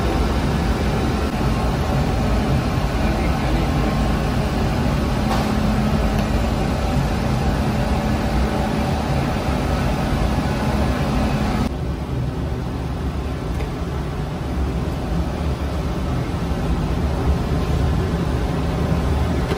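Steady machinery roar of a rotating-deck bakery bread oven running, heavy in the low end. About two-thirds of the way through, the sound drops a little and loses some of its hiss.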